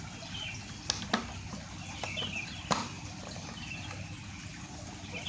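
Hard plastic rice-cooker cover being handled and fitted onto the cooker body: three sharp clicks, two close together about a second in and one near three seconds.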